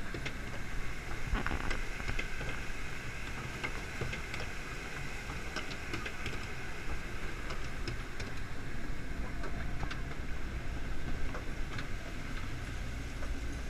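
Log flume boat riding up the conveyor lift hill: a steady mechanical rumble and rattle, with scattered sharp clicks.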